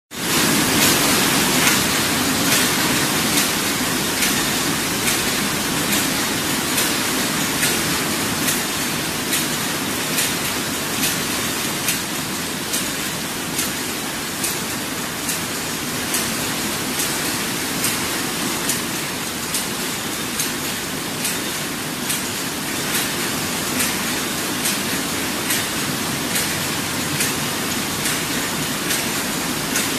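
Many cold heading machines running at once, forming screw heads from wire: a steady, dense mechanical din with frequent sharp knocks from the heading strokes.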